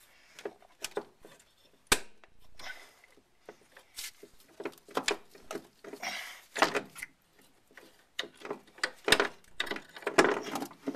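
Scattered clicks, knocks and rattles as a brake line and its bracket are worked loose from a car's rear strut, with one sharp knock about two seconds in.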